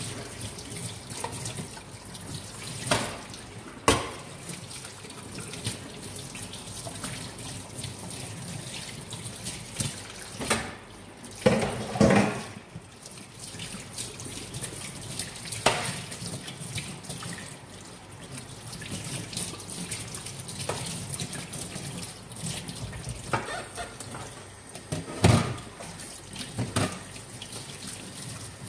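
Dishes washed by hand at a stainless steel sink: a tap running steadily, with scattered clanks and clatters of metal pots and utensils, the loudest near the middle and near the end.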